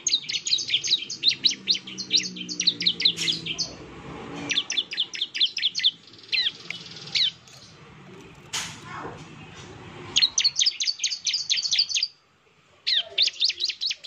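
Bar-winged prinia (ciblek) singing its rapid 'nembak' song: fast trains of sharp, high chirps at about eight notes a second, in several bursts broken by short pauses. There is a single sharp click about eight and a half seconds in.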